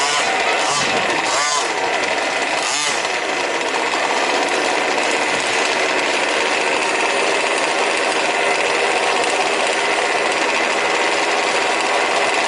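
Several 1/5-scale petrol RC trucks' small two-stroke engines buzzing together, their pitch rising and falling with the throttle in the first few seconds, then a steady, dense drone.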